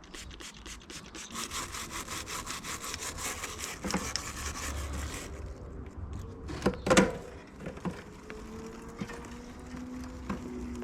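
Stiff-bristled brush scrubbing a mountain bike's drivetrain (chain and derailleur) in fast back-and-forth strokes. The scrubbing stops about halfway, followed by a couple of sharp knocks about seven seconds in.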